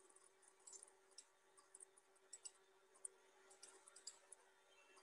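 Scattered faint clicks of a computer mouse over near silence, with a faint steady hum underneath.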